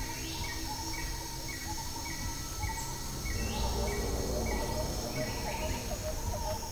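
Forest ambience: birds calling, one repeating a short high note a little under twice a second, with other chirps, over a steady high insect drone.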